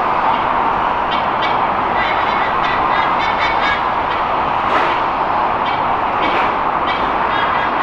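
White-bellied sea eagles giving repeated honking calls in several short bouts: territorial warnings at an intruding eagle. Behind them runs a steady roar of expressway traffic.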